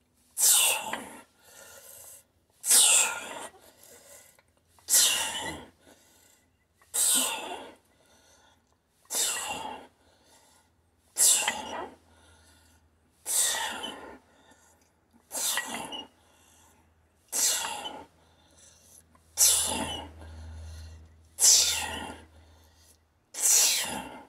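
A man's forceful exhalations through the teeth, one with each rep of heavy dumbbell shrugs, about one every two seconds, each followed by a weaker breath.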